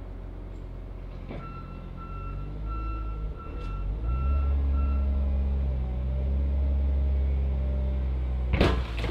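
A loader's engine running and revving up, its reversing alarm beeping for a few seconds, then a burst of loud crunching metal impacts near the end.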